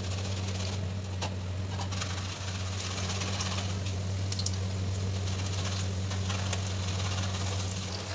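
Besan-battered green chillies deep-frying in hot oil in a wok: a steady sizzle with scattered pops and crackles, over a constant low hum.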